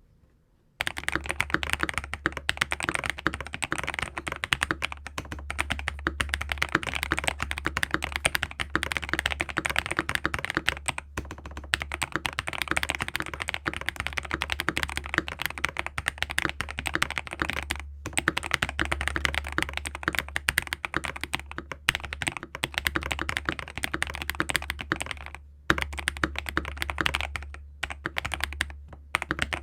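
Fast, continuous typing on a CIY GAS67 mechanical keyboard with lubed KTT Kang White linear switches, a polycarbonate plate and PBT keycaps, its case foam-modded and tempest-tape-modded. The typing starts about a second in and runs with a few brief pauses.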